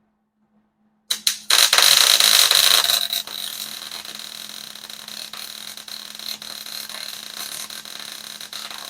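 Welding arc crackling. A few sharp clicks as the arc strikes about a second in, a loud burst of crackle for a second and a half, then a steadier, quieter crackle with a thin high whine.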